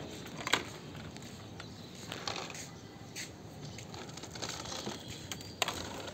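Plastic toy vehicles being handled and rummaged in a plastic tub, giving a few scattered clicks and clatters, the loudest about half a second in.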